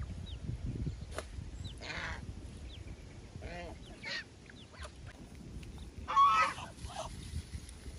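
Domestic geese honking now and then, several separate calls with the loudest just after six seconds in, and short high chirps in between.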